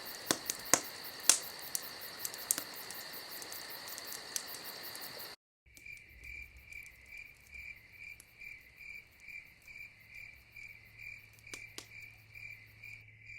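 Ambient night recording: crickets trilling steadily with sharp crackles and pops of a wood fire over the first five seconds. After a brief gap the bed changes to crickets chirping in a steady rhythm, about one pulse every 0.7 s, over a low steady hum.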